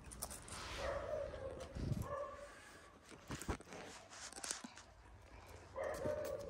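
Young Kangal dog giving three short whining notes, with clicks and rubbing as it moves close past the microphone.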